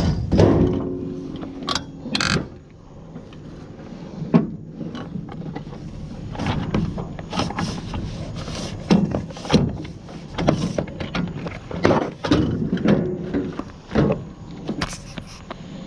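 Scrap being handled and pulled apart by hand: irregular clunks, knocks and rattles of metal and plastic parts, with one ringing metallic clang just after the start.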